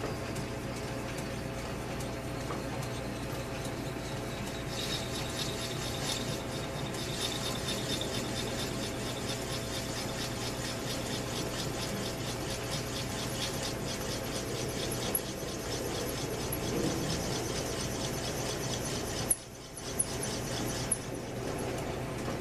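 South Bend lathe running while a drill bit cuts into the spinning end of a motorcycle handlebar, enlarging its bore; a steady motor hum with a high squealing whine from the cutting that starts about five seconds in. Near the end the sound drops briefly and a few sharp clicks are heard.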